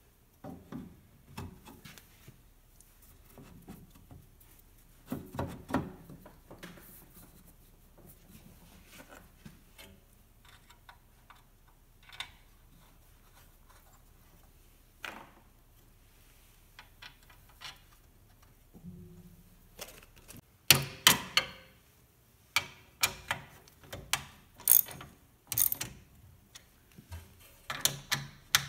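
A wooden block knocked and shifted on the iron tool rest frame of a sandstone grinder: scattered knocks and rubbing, then a quick run of sharp clicks and knocks over the last eight seconds.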